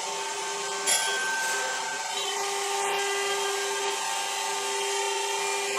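Three-spindle ATC CNC router running, one high-speed spindle driving its bit along a groove in a wood board: a steady whine over the hiss of cutting. There is a brief click about a second in.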